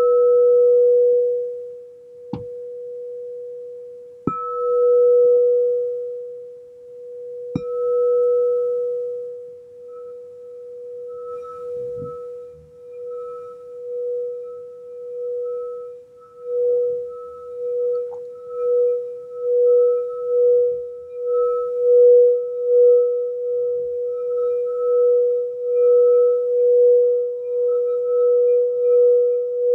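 Frosted crystal singing bowl struck with a ball-tipped mallet a few times in the first eight seconds, each strike ringing one clear, steady tone. From about ten seconds in the mallet is circled around the rim, holding the tone on with a regular wavering pulse that grows louder over the second half.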